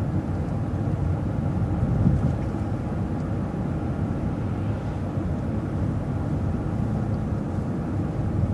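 Transit bus driving at steady speed: an even low rumble of engine and road noise.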